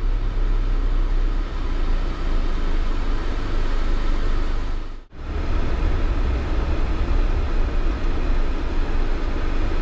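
Motorhome driving, heard from inside the cab: a steady rumble of engine and road noise. It breaks off for an instant about halfway through, then carries on.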